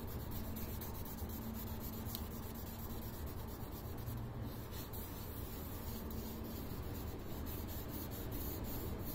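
A lead test swab rubbed over freshly scratched paint on a car's metal suspension crossmember: a faint, steady scratchy rubbing with many small ticks.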